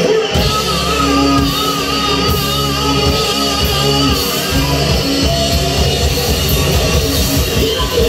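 Live rock band playing loud: drum kit, bass and electric guitar, with a singer; a held, wavering note stands out about a second in.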